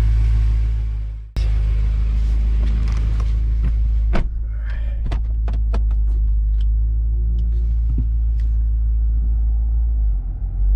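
BMW F10 M5's twin-turbo V8 running at a low steady idle while the car is eased along at walking pace, with scattered sharp clicks and knocks over several seconds. The wheels are being held by lug bolts long enough to bind in the hubs.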